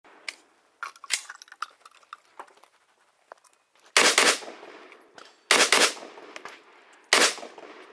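Rifle gunshots in three quick strings, each of several shots fired in fast succession, about a second and a half apart, with faint clicks and knocks in the first few seconds before the shooting starts.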